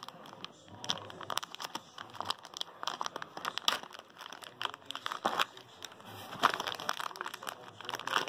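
Clear plastic zip-lock bag crinkling and rustling as it is handled, with many irregular crackles.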